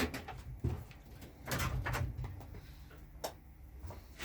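Scattered clicks and knocks of a wrench on the Yamaha GT80's spark plug, with a short rasping stretch about a second and a half in, as the plug is loosened.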